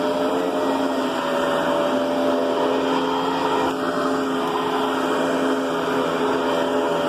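Riccar Brilliance upright vacuum cleaner running steadily, a constant motor whine over a rushing hiss of air.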